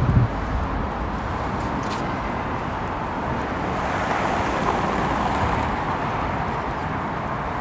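Steady city street noise of passing traffic, with a brief low thump at the very start.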